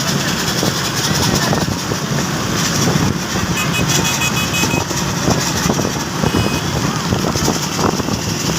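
Motor vehicle engines running with road noise, with a brief high tone about three and a half seconds in.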